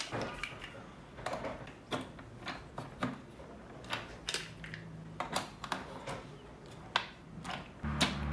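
Irregular hard plastic clicks and knocks as castor wheels are handled and pressed into the plastic base of a canister vacuum cleaner. A low steady hum comes in near the end.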